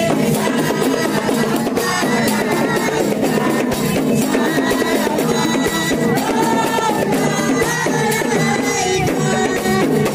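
Traditional hadrat music: frame drums beaten in a steady, fast rhythm with voices singing over them.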